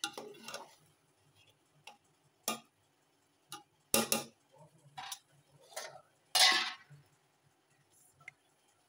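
Metal spoon clinking and scraping against an aluminium cooking pot as cooked rice is turned and the potato curry is spooned over it. It comes as a string of separate knocks and short scrapes, the loudest about four seconds in and a longer scrape about six and a half seconds in.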